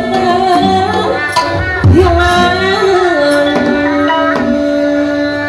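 Sundanese jaipongan gamelan playing: kendang barrel drums struck in irregular sharp strokes over bronze kettle gongs and hanging gongs, with a sustained, sliding melody line held above them.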